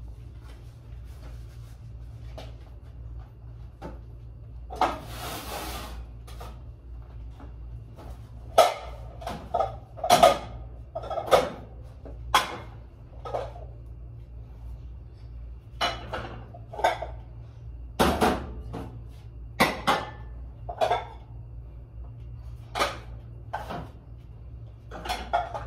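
Ceramic plates clinking and knocking against each other as they are handled and stacked, in irregular sharp clatters, over a low steady hum.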